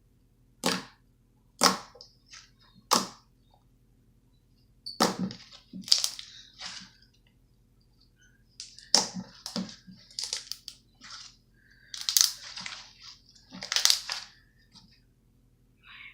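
Homemade slime being mixed and squeezed by hand, making sharp pops and crackles: three single snaps in the first few seconds, then clusters of crackling pops.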